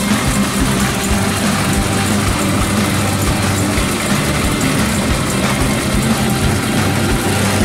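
Engine of a turbocharged first-generation Chevrolet Camaro idling steadily, a deep, even running sound.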